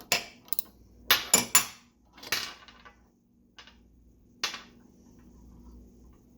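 Sharp metal clinks and knocks from handling the parts of a Buckeye 3-inch three-chime steam whistle as it is taken apart: about eight separate strikes, the loudest cluster about a second in and a last single clink near the middle.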